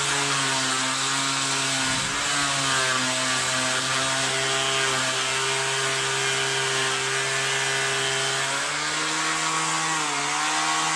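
Ozito 18V cordless random orbital sander running on speed 6 with its pad pressed hard onto wood. The motor pitch sags under the load about two seconds in and again near the end, but it keeps spinning and does not stall.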